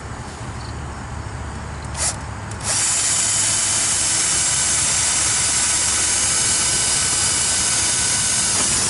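Handheld electric drill: a short trigger blip about two seconds in, then running steadily at constant speed with a high whine for about six seconds before it stops suddenly.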